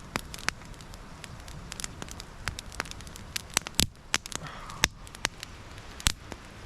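Wood campfire crackling, with sharp irregular pops every fraction of a second over a steady low hiss.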